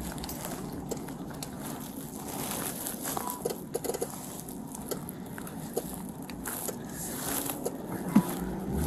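Faint rustling with a few scattered small clicks and taps as hands move about in a car's cabin.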